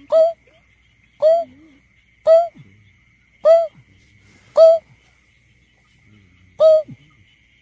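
Greater painted-snipe calling: a series of short hooting notes about one a second, each dropping quickly in pitch, six in all, with a longer pause before the last.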